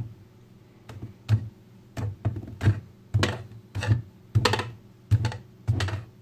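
Kaiweets HT118A multimeter knocking against a wooden workbench as it is pushed and tipped over on its fold-out stand leg: about a dozen irregular hard knocks, each a dull thud with a sharp click.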